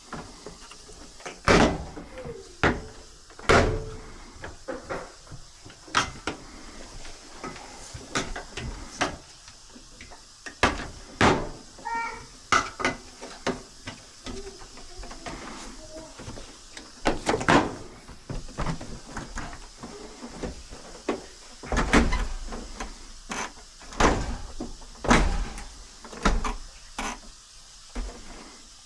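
Irregular knocks, clunks and rattles of a clothes dryer's cabinet panels and parts being handled, a dozen or more sharp strikes spread through the stretch.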